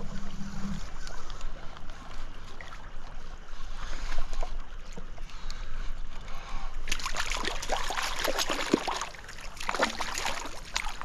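A hooked trout thrashing and splashing at the water's surface while being played on a spinning rod: two bursts of splashing, the first longer, starting about seven seconds in, over a low steady stream hiss.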